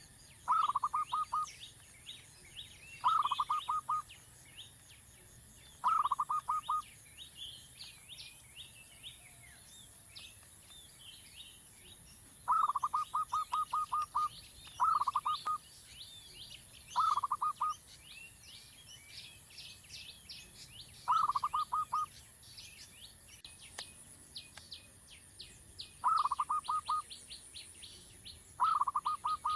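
A bird calling in short bursts of rapid pulses, one burst every two to three seconds, over faint, busy chirping of other birds.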